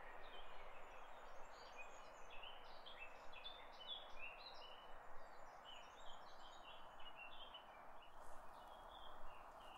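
Faint woodland ambience: small birds chirping with many short, high calls throughout, over a steady soft hiss.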